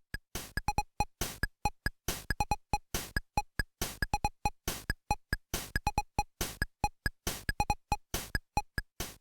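Electronic music of short, staccato synthesizer blips, mostly on one repeated pitch, with clicky percussive hits in a quick, busy rhythm and brief silences between notes.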